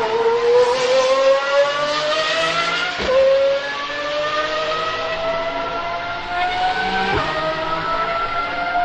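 Pagani supercar's V12 engine accelerating hard at high revs. Its pitch climbs steadily, drops sharply at an upshift about three seconds in and again about seven seconds in, then climbs again each time.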